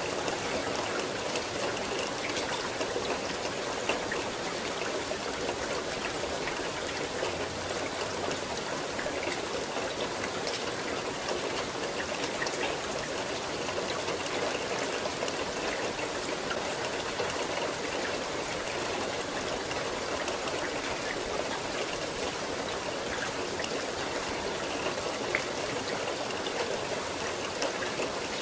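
Steady rainfall: an even hiss of falling drops, with single drops ticking out here and there.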